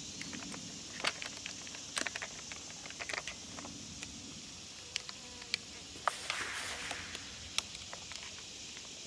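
Scattered light clicks and clacks as 12-gauge shells are loaded into a semi-automatic shotgun, over a steady insect buzz.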